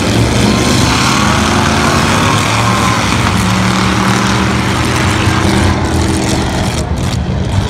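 Several race car engines running hard as the cars pass at speed on a dirt track, a steady engine drone under a wash of noise.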